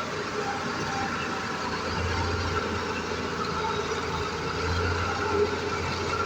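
Machinery running steadily, with a constant low hum.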